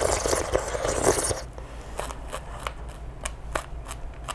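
Crinkly rustling for about the first second and a half, then scattered light clicks and taps, as of things being handled at the table.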